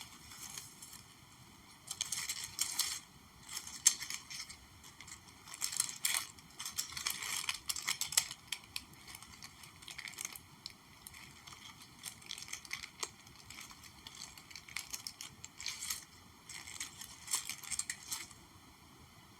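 ASMR trigger objects handled close to the microphone: crisp crinkling and scratching in short clusters, with small sharp taps, coming and going with quiet gaps between.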